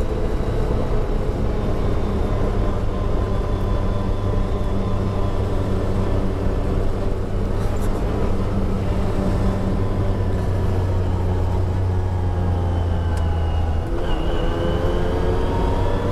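Side-by-side UTV engine running steadily under way, with tyre noise on a gravel road. About two seconds before the end the engine note drops briefly, then rises again as the machine picks up speed.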